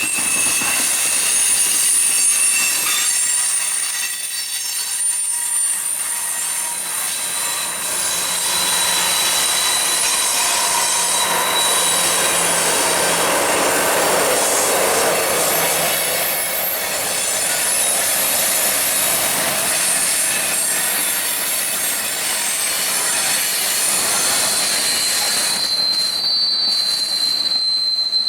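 Freight train cars rolling past, their steel wheels squealing in steady, thin high-pitched tones over the rushing noise of the train, with one high squeal growing stronger near the end.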